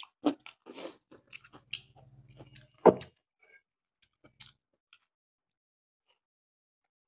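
Close-miked wet chewing and mouth smacks of a man eating rice and beef: a run of short smacks and clicks, the loudest about three seconds in, thinning out to a few faint ones and then quiet.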